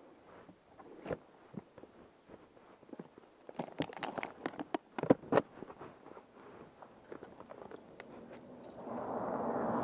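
Plastic motorcycle top box being handled and clipped back onto its rack: scattered clicks and knocks, with a quick cluster of sharp knocks in the middle. Near the end a vehicle's engine sound swells in and holds steady.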